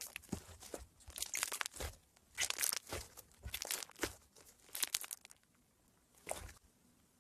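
Slime being squeezed and pressed by hand, giving bursts of crisp crackling and crunching from its hardened top layer, as in iceberg slime. The crackle eases off about six seconds in.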